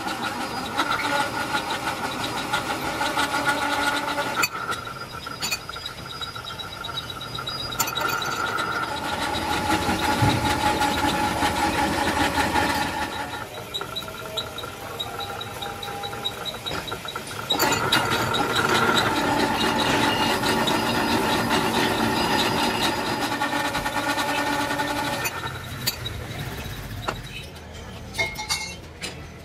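Pillar drill press boring bolt holes through the flange of a cast truck wheel hub: a steady machine run with a held cutting squeal, loud in three long stretches with quieter gaps between.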